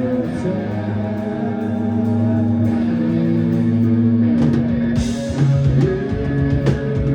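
Live rock band playing an instrumental passage: sustained guitar chords over drum kit, with sliding guitar notes and a cymbal crash about five seconds in.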